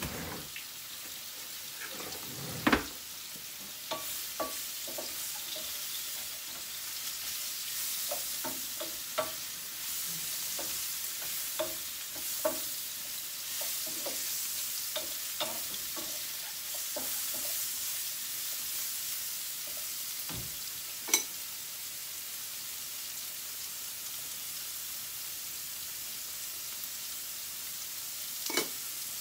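Sliced mushrooms sizzling as they are sautéed in a frying pan, with a wooden spatula scraping and clicking against the pan as they are stirred. A few sharp knocks stand out, about three seconds in, at around twenty-one seconds and near the end.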